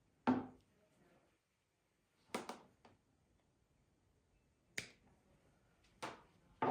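About five sharp snips of scissors, a second or two apart, trimming the stray end off a fabric seam.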